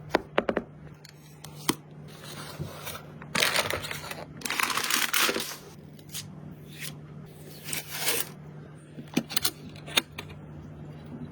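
Packaging being handled and torn open: a few sharp clicks and knocks, then three stretches of crinkling and tearing, over a steady low hum.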